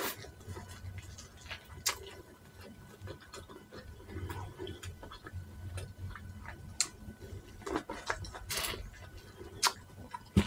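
A person chewing sweet corn with soft, irregular mouth clicks and smacks, more of them towards the end.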